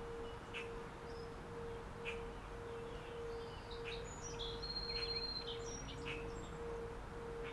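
Birds chirping and whistling over a steady mid-pitched tone that pulses about twice a second, with a low rushing background. It is a relaxation soundscape that lays a rhythmic pulse over nature sounds, the pulse meant to match brainwave rhythms.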